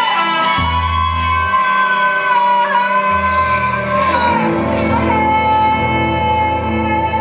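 Live rock band playing: a woman's wordless wailing vocal holds long high notes over electric guitar and bass, with a trumpet in the mix.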